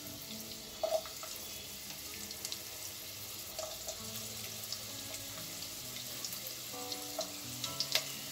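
Chopped onion and garlic sizzling in hot oil in a non-stick kadai, a steady hiss with scattered crackling pops. A few sharp knocks of the spatula against the pan, the loudest near the end.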